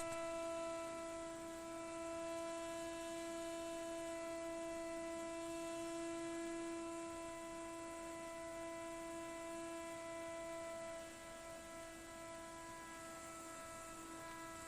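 Defective gas boiler giving off a steady, even-pitched hum with many overtones, a little quieter from about eleven seconds in.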